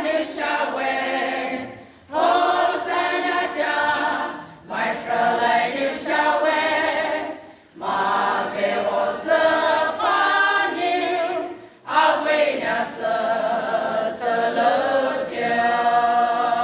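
A women's choir singing a song unaccompanied, in phrases of a few seconds with short breath pauses between them, ending on a long held note.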